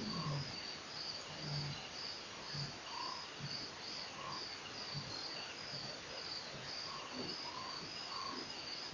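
Crickets chirping in a steady rhythm, about two short high chirps a second.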